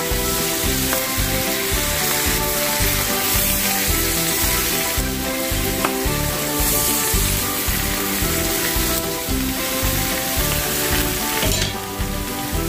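Kale leaves sizzling in hot oil in a skillet as they are stirred and turned with a wooden spatula. Background music with a steady beat plays underneath.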